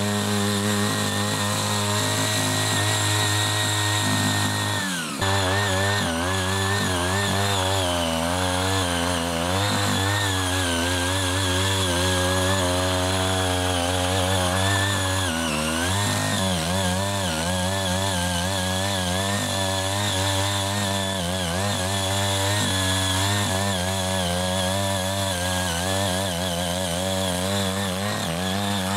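Small petrol engine of a CY80 foldable mini tiller running hard while its eight rotary blades churn through grass and soil. The engine note is steady at first, dips sharply about five seconds in, then wavers up and down continually as the load on the blades changes.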